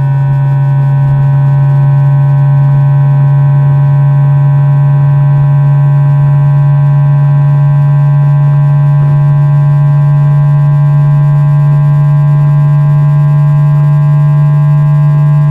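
Induction-coil pickup of a JR East E2-1000 series Shinkansen's 3-level IGBT VVVF inverter and traction motor current in one-pulse mode during acceleration. It is a steady low hum with fainter higher tones above it, creeping slowly upward in pitch as the motor speeds up.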